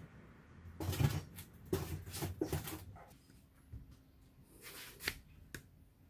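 Handling noises: a close run of short knocks and rustles for the first few seconds, then a few separate clicks near the end, as pieces are taken from a stainless steel bowl and put into an expanded-polystyrene foam box.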